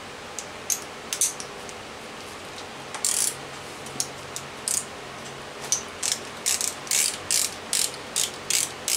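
Ratchet wrench with a 10 mm socket clicking as a bolt is undone: a few isolated clicks at first, then bursts of ratcheting clicks, about three strokes a second in the last few seconds.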